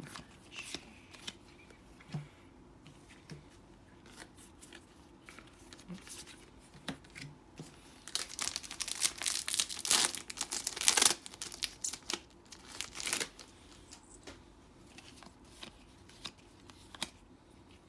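Crinkling and tearing of a foil trading-card booster pack wrapper, densest and loudest from about eight to eleven seconds in, with scattered light clicks around it.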